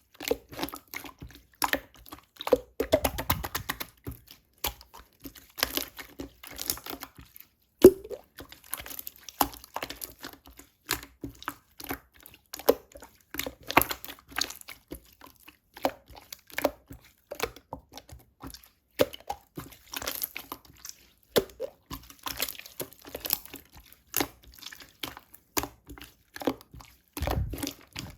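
Clear slime being squeezed, stretched and folded by hand, making rapid, irregular sticky clicks and small wet pops.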